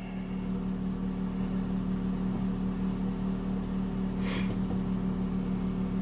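Steady hum of a Sharp microwave oven running, together with a Smarter Tools inverter generator with a Yamaha MZ80 engine running outside the van. The generator carries the microwave's load and has idled up only a little. There is a brief hiss about four seconds in.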